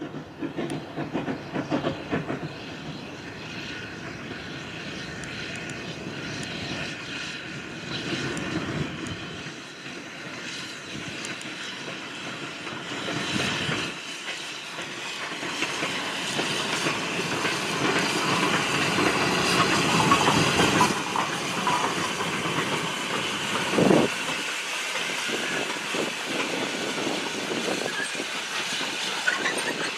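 SECR C Class 0-6-0 steam locomotive hauling a goods train past. The engine's working is followed by the four-wheeled wagons rolling by, their wheels clattering over the rail joints and growing louder toward the middle. There is one sharper knock a few seconds before the end.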